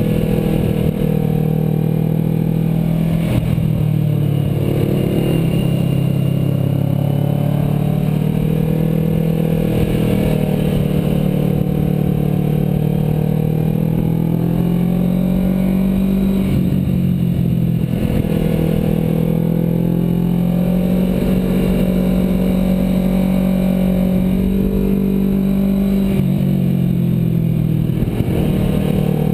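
Kawasaki Ninja 650R's parallel-twin engine through an Arrow aftermarket exhaust, heard close up from a tank-mounted camera while riding. The engine note rises and falls again and again as the throttle is worked through the bends.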